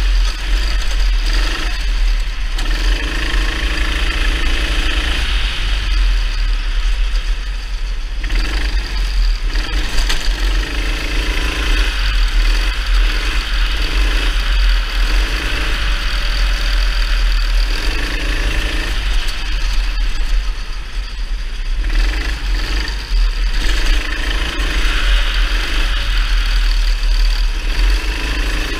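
Kart engine heard from an onboard camera, revving up and down as the kart laps through corners, with wind buffeting the microphone.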